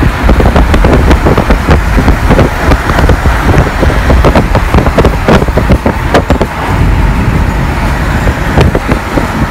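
A car driving at speed: loud, steady road and wind noise with a heavy low rumble, broken by frequent crackling buffets on the microphone.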